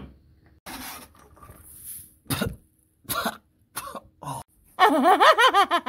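A man coughing and spluttering in short bursts with glitter blown in his face, then a drawn-out, wavering groan near the end.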